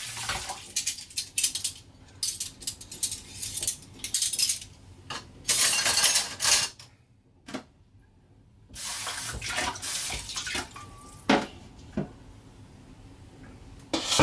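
Kitchen tap running and splashing over dishes as they are rinsed in a sink, coming in uneven spurts with clinks of crockery and cutlery. The water stops for about two seconds midway, and a few sharp knocks of crockery come near the end.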